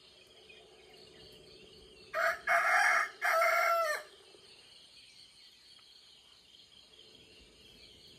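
A rooster crowing once, about two seconds in: a call of nearly two seconds in three linked parts, ending on a falling note. A faint steady insect chirring carries on underneath.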